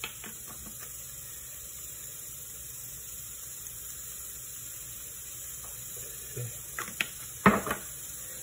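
Steady hiss of a pressure cooker letting off steam as it cooks, with a few light knocks from handling on the counter near the end, the loudest about seven and a half seconds in.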